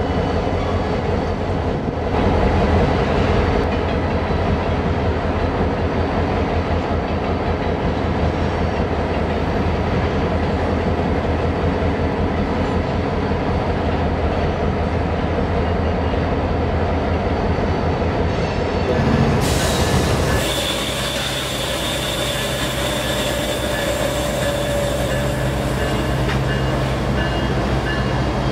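Freight train rolling past with a steady rumble of wheels and cars. About two-thirds in the sound changes to a Union Pacific diesel locomotive passing close by, its engine humming steadily under a high, thin squeal from the wheels.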